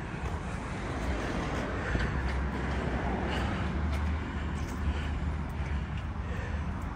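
Wind buffeting the microphone: a steady low rumble with an even hiss over it.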